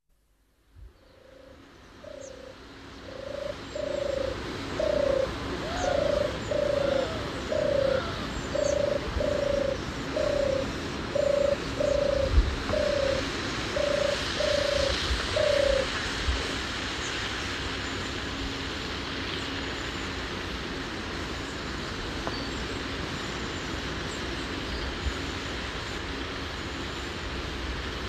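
Field recording of a bird giving a long run of short, low cooing notes, often in pairs, about two a second. The calls stop about two-thirds of the way through. Faint higher chirps from other birds sound over a steady outdoor hiss.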